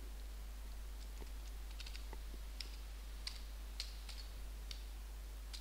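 Computer keyboard keys tapped one at a time while a number is typed: a string of sharp, irregularly spaced key clicks.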